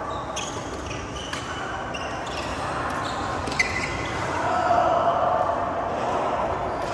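Badminton rally in an indoor hall: sharp racket hits on the shuttlecock about once a second over a steady hall noise. Background voices grow louder a little past halfway.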